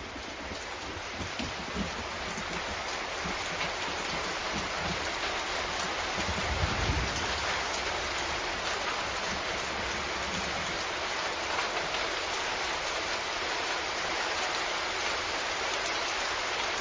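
Steady rain: a dense, even hiss that slowly grows louder, with a brief low rumble about six to seven seconds in.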